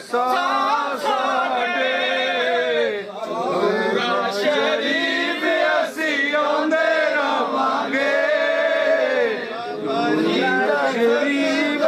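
A crowd of men singing a Punjabi devotional chorus together, their voices rising and falling in long sung lines.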